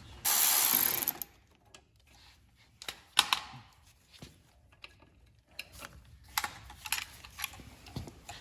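A ratchet wrench ratcheting rapidly for about a second near the start, backing off a terminal nut on a lawn tractor's starter solenoid, followed by scattered light metal clicks and knocks of the wrench and nut.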